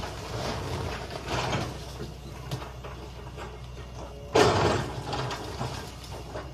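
Excavator demolishing a building: its engine runs steadily under scraping and clattering of debris, with a loud crash about four seconds in.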